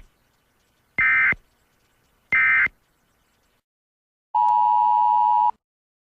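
Emergency Alert System SAME digital data tones: the end of one short buzzing data burst, then two more about 1.3 s apart, the end-of-message code that closes an alert. After a short pause a single steady beep sounds for about a second near the end.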